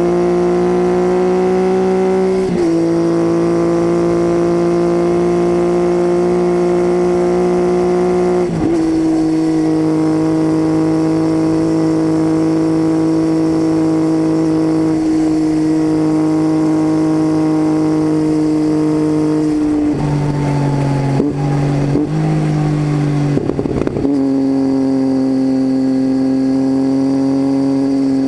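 Triumph Tiger 800's three-cylinder engine running through an unbaffled titanium Leo Vince exhaust, heard from on the bike while riding: a steady drone whose pitch eases down in small steps a few times.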